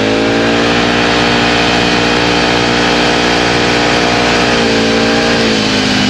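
Can-Am Outlander 1000 XMR ATV's V-twin engine running loud through a dual slip-on exhaust, held at steady revs under way. The revs drop briefly about five seconds in and pick up again near the end.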